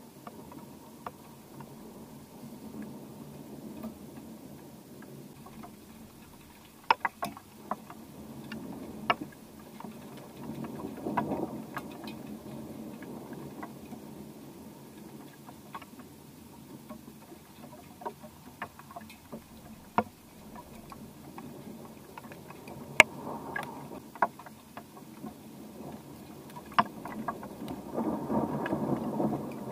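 Distant thunder rumbling during a thunderstorm, swelling about ten seconds in and again near the end, with scattered sharp ticks over it.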